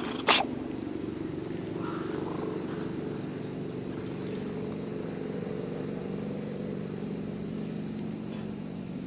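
Domestic cat purring steadily while being stroked, a close, even low rumble. A single sharp click near the start.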